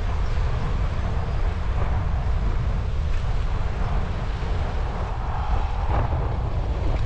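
Wind buffeting a GoPro's microphone on a moving bicycle: a steady low rumble.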